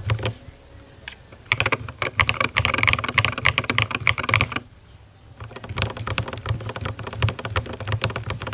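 Mechanical keyboard with Akko V3 Cream Yellow Pro linear switches being typed on: a fast run of keystroke clacks, broken by two short pauses, one near the start and one about halfway through.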